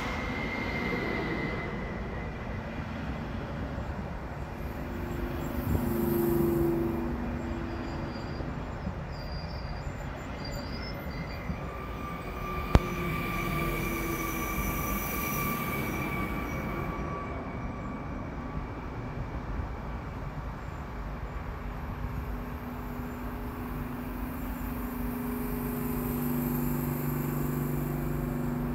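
Stadler FLIRT electric multiple unit of Koleje Mazowieckie (class ER160) slowing along the platform with wheel and brake squeal and the whine of its drive, then standing with a steady low hum from its equipment. There is a single sharp click about 13 seconds in.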